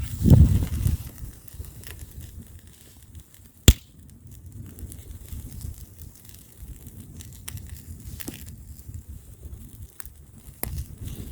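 Wood bonfire crackling with scattered small pops and one sharp, loud pop a few seconds in. Gusts of wind rumble on the microphone at the start and again near the end.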